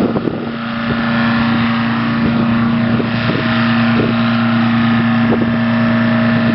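An engine running steadily, a constant-pitch drone with a few faint knocks over it.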